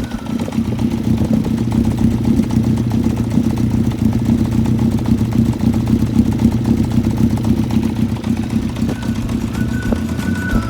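Honda CBX550F's air-cooled inline-four engine idling steadily with a fast, even pulse, on a bike whose engine has an abnormal noise.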